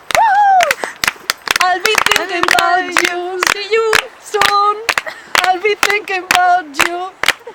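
Women's voices singing and calling without clear words over hand claps, opening with a high whoop that falls in pitch.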